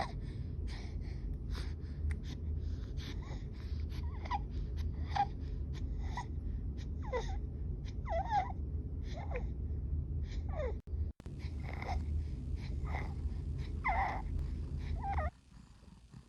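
Rapid, laboured breathing, about two breaths a second, many breaths carrying a high-pitched noise that falls in pitch: stridor with tachypnea, a sign of upper-airway narrowing in respiratory distress. A steady low hum runs underneath and drops away near the end.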